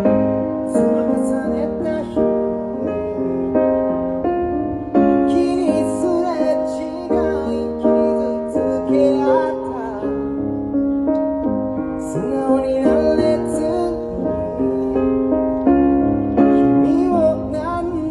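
Live pop duo in an instrumental passage: a stage keyboard playing piano chords and melody, with acoustic guitar accompaniment.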